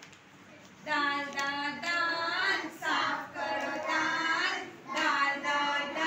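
Young children's voices chanting together in a sing-song, starting about a second in and going on in short held phrases.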